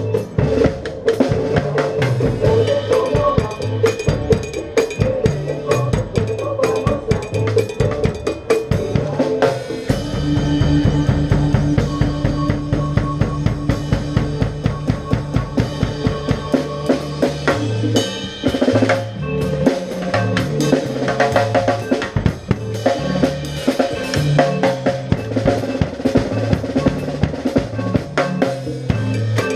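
Music led by a drum kit: a dense, fast drum rhythm over a bass line that steps between notes, holding one low note for several seconds in the middle.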